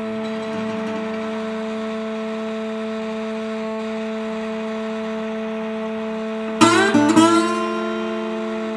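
Ambient guitar music: a steady drone of held tones, then about two-thirds of the way in a cluster of plucked guitar notes whose pitches bend and slide down.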